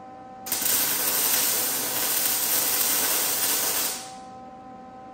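Electric welding arc laying a tack weld on a steel bike frame: a loud, steady crackling hiss that starts abruptly about half a second in and dies away about three and a half seconds later.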